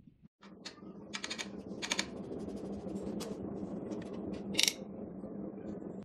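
Sharp metallic clicks and clinks as a freshly cut SIP22 key is unclamped and lifted out of the steel jaw of a 2M2 Tank key cutting machine, over the machine's steady hum. The loudest clink comes about four and a half seconds in.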